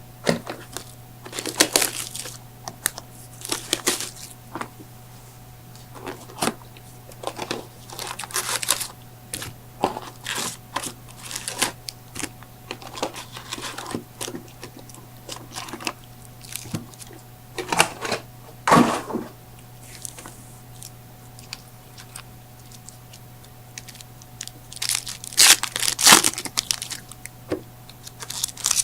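Trading-card pack wrappers being torn open and crinkled: irregular rips and rustles, with louder tearing bursts now and then.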